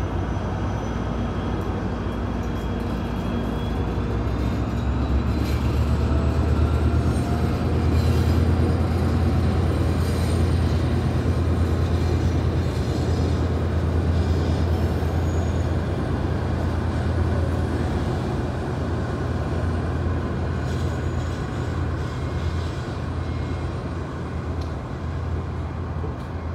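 Trinity Railway Express diesel commuter train passing: a steady low rumble of the locomotive and coaches rolling by. It grows louder a few seconds in and slowly fades near the end.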